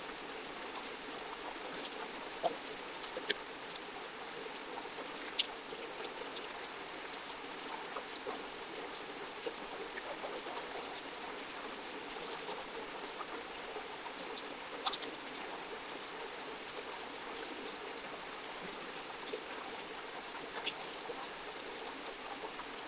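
Steady rush of flowing stream water, with a few brief sharp clicks scattered through.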